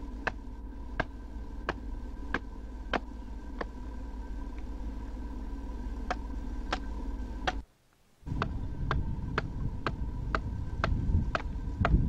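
Small hand adze chopping into a block of wood: sharp knocks about every two-thirds of a second, pausing briefly in the middle, over a steady hum and hiss. The sound cuts out for a moment near eight seconds, then the chopping resumes.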